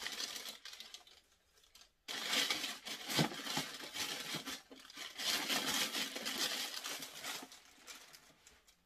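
Crinkling and rustling of a white sneaker wrapping bag as a shoe is handled and packed away, with a knock about three seconds in.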